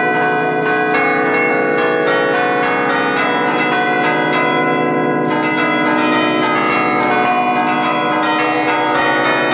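Church bells played as a melody by hand from a baton keyboard, each lever pull striking a bell. Quick strikes follow one another without a break, so the notes ring over each other in a continuous peal.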